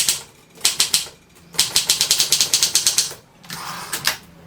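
Triumph Durabel portable typewriter being typed on, its type bars striking in quick runs of sharp clacks broken by short pauses. A brief softer rasp comes near the end.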